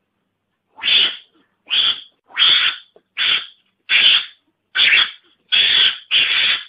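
Javan mongoose calls used as a hunting lure: a series of about eight short, harsh calls, one roughly every 0.7 s, starting about a second in.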